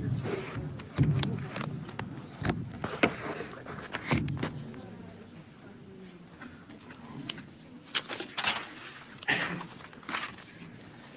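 Microphone and podium handling noise: a scattered series of sharp knocks and rustles as a handheld microphone and papers are handled, with faint murmuring in the room.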